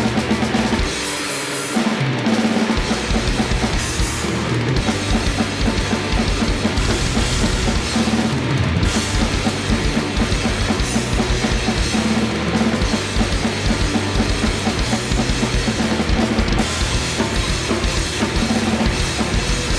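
Drum kit played fast in a grindcore style: a Tama kit with an 18-inch kick drum, toms and a metal snare, with cymbals, in dense rapid strikes. The playing briefly thins about a second in, then carries on.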